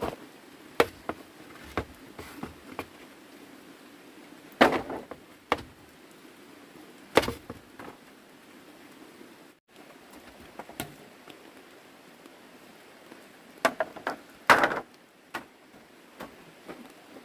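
Hollow wooden knocks and clatters of bamboo poles and slats being handled, coming irregularly with the loudest about five and seven seconds in and a cluster near fourteen seconds. Under them runs a steady patter of light rain.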